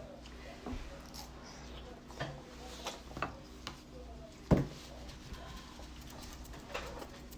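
A child eating cup noodles: scattered small clicks and knocks of eating and handling the cup, with one louder knock about four and a half seconds in, over a faint steady low hum.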